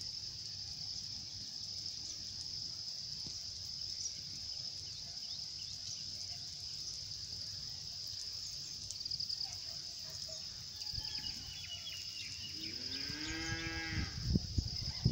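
A cow moos once near the end, a long call of about a second and a half that rises and then falls in pitch. Under it there is a steady high insect buzzing, and low thumps follow right at the close.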